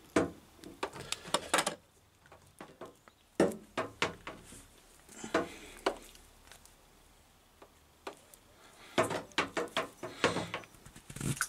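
Irregular clicks, scrapes and light knocks as the outer sheath of SY cable is cut and worked off its steel braid with an electrician's knife over a wooden bench.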